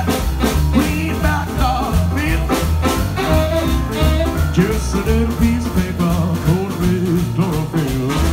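Live small swing band playing an instrumental stretch between sung lines: upright double bass walking the low line, piano, saxophone and drums keeping a steady swing beat.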